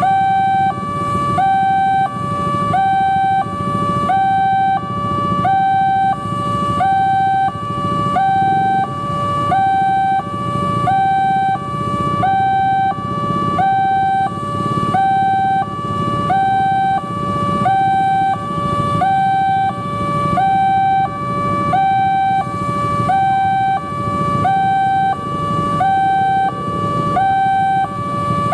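Electronic railway level-crossing alarm sounding from the loudspeaker on the crossing signal: two tones alternating in a steady, even rhythm, the warning that a train is approaching. Road traffic runs underneath.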